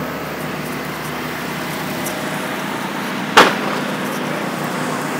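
Steady outdoor engine hum and street noise, with one sharp loud knock about three and a half seconds in.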